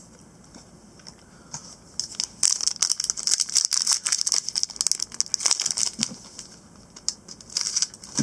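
Foil wrapper of a Panini Select basketball card pack crinkling and crackling as it is handled and opened. The crinkling starts about two seconds in, is densest for the next few seconds, and comes back briefly near the end.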